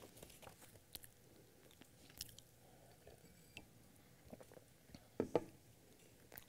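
Faint sounds of a man drinking from a glass of water: soft mouth and handling clicks, with two louder short sounds about five seconds in.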